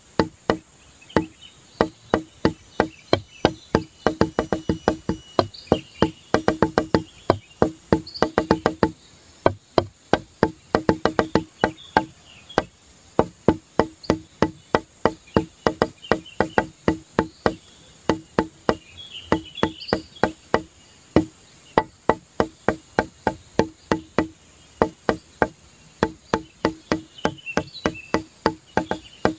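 Background music: a quick, bouncy run of short struck notes on a woody, marimba-like instrument, repeating the same few pitches in a rhythm with brief pauses.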